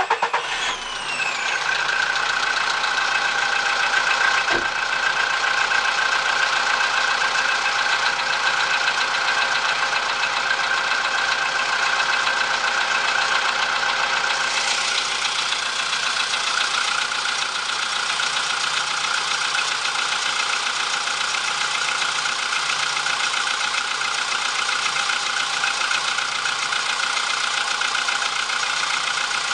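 VW Polo engine idling just after a cold start, settling into a steady idle in the first second or two, with a knock from the timing chain drive that is clearest about eight seconds in. The owner takes it for a worn timing chain or tensioner, a noise heard only while the engine is cold.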